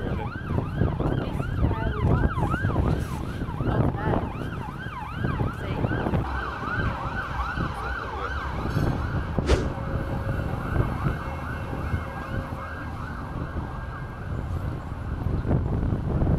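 Emergency vehicle siren in a fast yelp, its pitch sweeping up and down about three times a second and growing fainter over the last few seconds, over a low rumble of wind and traffic.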